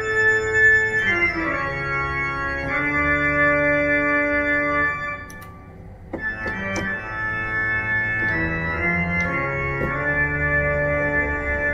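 Computer pipe organ, a digital organ with MIDI keyboards, playing held chords in a pipe-organ voice through loudspeakers, with a short break about five seconds in before the chords resume. It is being played as a final test of its stops and tones after repair.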